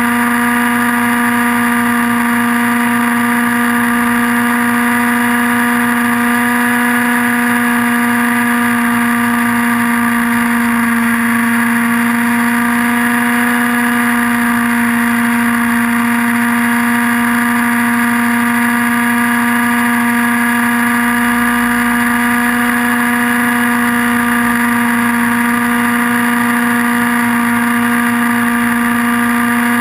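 Align T-Rex 700N nitro RC helicopter's glow engine running in flight, a loud, steady buzz that holds one pitch, heard from a camera mounted on the helicopter.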